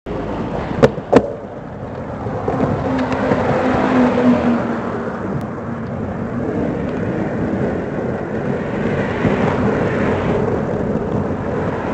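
Wind rushing over the microphone with tyre and road noise from a road bicycle riding in a group. Two sharp clicks about a second in.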